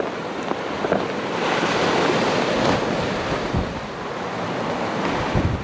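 Sea waves washing onto the shore, one surge of surf swelling about a second and a half in and easing off, with wind buffeting the microphone.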